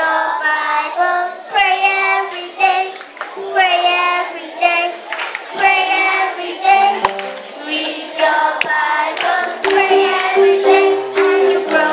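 A group of young children singing together, with scattered hand claps.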